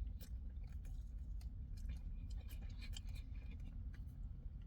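Chewing a mouthful of soft pretzel sandwich: faint, irregular wet mouth clicks over a low steady rumble.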